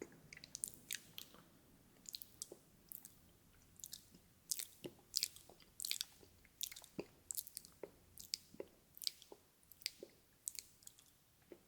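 Close-miked ASMR mouth sounds: wet, irregular clicks and smacks of lips and tongue, a few each second.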